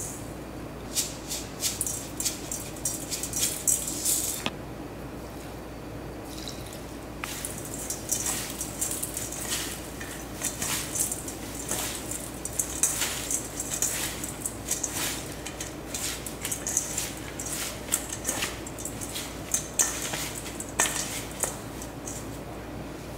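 Seasoned greens being tossed by hand in a stainless steel mixing bowl: irregular rustling of the leaves with light clinks and taps against the bowl. A short cluster of spoon taps on the bowl comes in the first few seconds, and after a brief pause the hand-mixing runs on until near the end.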